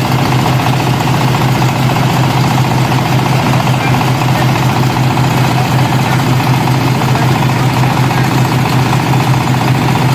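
Combine harvester's diesel engine running steadily at idle, an even low-pitched hum with a dense mechanical rattle over it.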